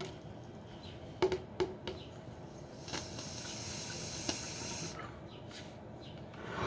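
Water bubbling through a glass bong's tree percolator as smoke is drawn through it: a few sharp gurgling pops about a second in, then about two seconds of steady hissing bubbling in the middle.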